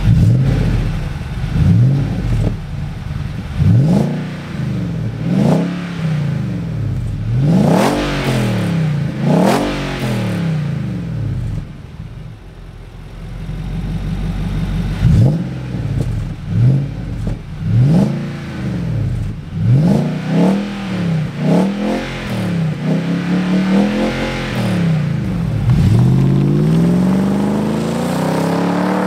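Nissan Y62 Patrol's 5.6-litre V8 through an AVO cat-back exhaust, revved again and again in short blips that rise and fall in pitch. Near the end it pulls in one long rising sweep as the vehicle accelerates away.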